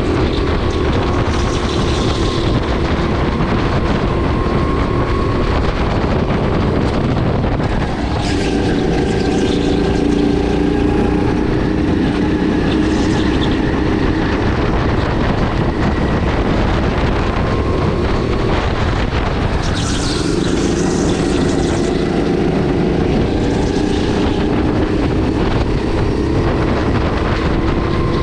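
Sodi RX8 kart's 270 cc LPG single-cylinder four-stroke engine running hard at speed. Its note drops twice and climbs again as the revs fall and build through the corners.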